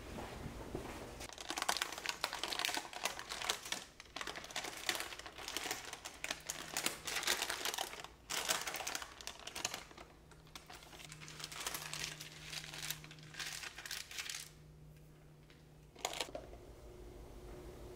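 Paper lining being peeled away from the sides of a baked sponge cake, crinkling and rustling in bursts with short pauses. One sharp click near the end.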